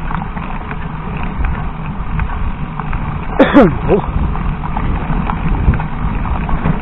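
Mountain bike rolling over a rough dirt trail: a steady rumble with constant small rattles and knocks, picked up by a camera mounted on the bike. About halfway through comes a brief squeal that falls in pitch.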